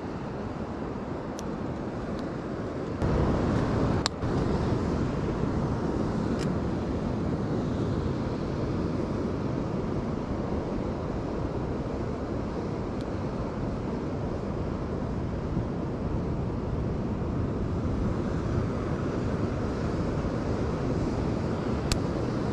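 Steady wind noise on the microphone mixed with surf, stepping up louder about three seconds in, with a few faint clicks.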